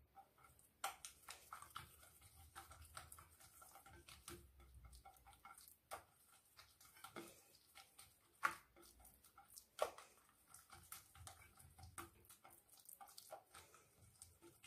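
Faint sticky smacks and small clicks of buttered melwi dough being stretched and rolled up by hand on a glazed clay platter, irregular throughout, with two louder smacks about two-thirds of the way through.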